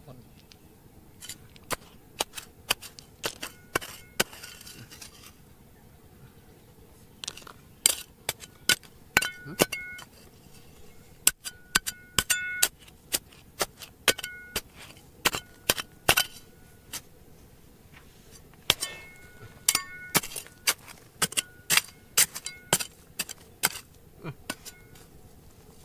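Irregular sharp clinks and taps of hard objects striking one another, several a second in runs with a couple of short pauses, many of them ringing briefly.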